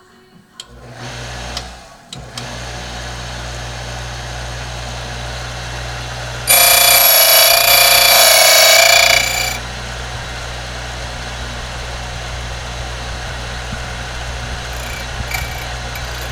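LaGard Model 1350 Trace-A-Key key machine switched on with a click, its motor spinning up and then running steadily. For about three seconds in the middle the cutter bites into the Kwikset KW1 key blank with a loud, high-pitched ringing whine. Then the motor runs on, with a few light clicks near the end.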